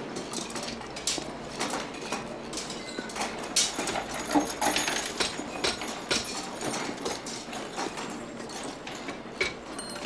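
Irregular metal clanks and knocks of hand metalworking in a factory workshop: hammer blows and metal parts being handled.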